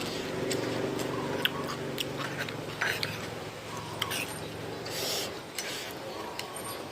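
Someone eating: a scatter of sharp clicks and crunches from chewing and utensils, with a low steady hum under the first three seconds.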